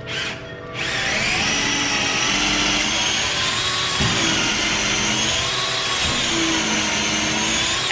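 Power drill spinning up about a second in and running steadily as it bores a hole into soft wood with a sharp bit, its motor whine wavering slightly under load, then stopping near the end.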